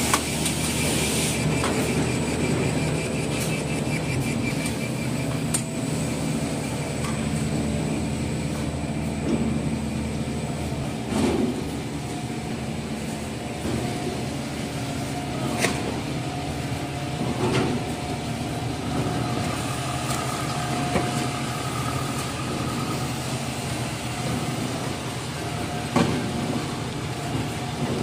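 Toilet paper converting line machinery running steadily: a dense mechanical clatter and hum with a few sharp knocks scattered through it.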